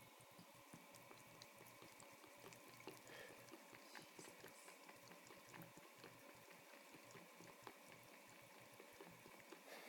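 Faint trickle of a thin stream of tap water running into a sink basin, with soft, irregular little clicks of a cat lapping at the stream.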